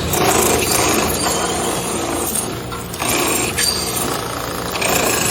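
A power tool working bell metal, running steadily with a dense grinding noise and no clear rhythm; a faint high ringing tone comes in over the last couple of seconds.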